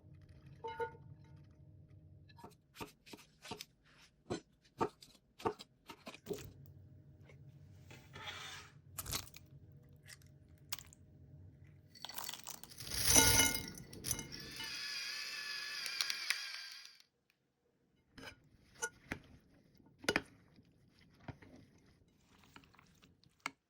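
Sandwich-making sounds: a run of light knocks and clicks with crunching and tearing. About halfway through comes a louder clatter, followed by a steady hiss lasting a couple of seconds.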